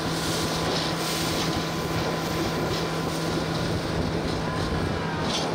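Boat motor running steadily at cruising speed on a moving aluminium river boat, a constant low hum under the rush of water along the hull and wind on the microphone.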